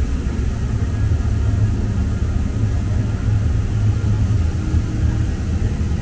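Steady low rumble of a Muni Metro Siemens S200 light-rail car running along the track, heard inside the passenger cabin.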